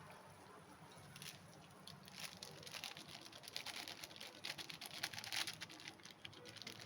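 Kajjaya frying in hot oil, with faint, irregular crackling and sizzling that gets busier about two seconds in.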